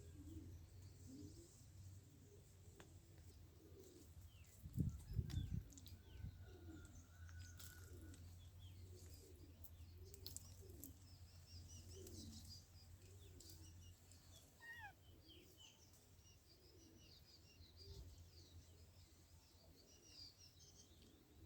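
Faint bird calls: a low, repeated cooing about once or twice a second and scattered high chirps. A brief low thump comes about five seconds in.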